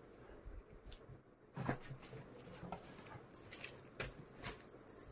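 Thick woven cotton floor mat being folded and handled: faint irregular rustles and soft knocks, starting about a second and a half in.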